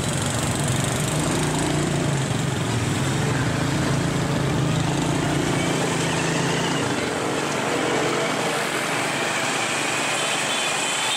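Small motor scooter engine running steadily while riding through traffic, amid the noise of other scooters on the street. The engine's hum fades about seven seconds in.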